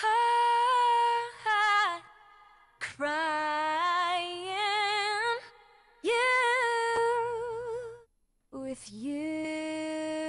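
An unaccompanied female vocal track singing four phrases of long held notes with vibrato, with short breaks between them.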